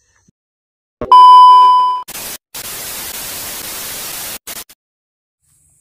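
A loud steady test-tone beep for about a second, then TV static hiss for about two seconds that cuts off suddenly: a "no signal" video-glitch transition sound effect.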